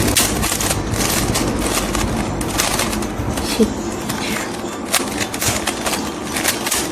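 Rubik's cube being turned quickly by hand: a rapid, irregular run of plastic clicks and clacks as the layers snap round, in the last moves of a solve.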